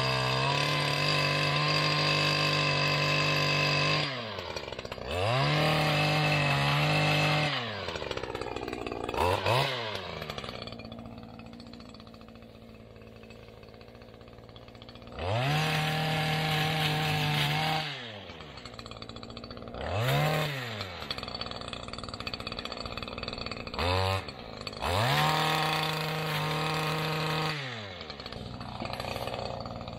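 Small two-stroke engine of a handheld brush-clearing power tool, revved to full throttle again and again in bursts of one to four seconds as it cuts brush, dropping back to idle between bursts, with a longer idle stretch around the middle.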